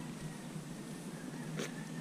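Feathers being plucked by hand from a dead Erckel's francolin's breast: a soft rustle, with one brief sharper rustle of feathers pulling free about one and a half seconds in.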